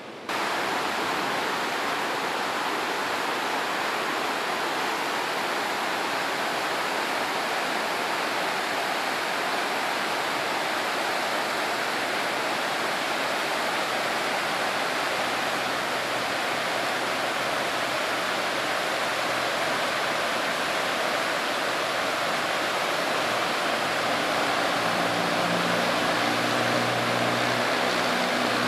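Steady rushing of a fast, churning whitewater mountain river, cutting in suddenly at the start. Near the end a faint low steady hum joins in.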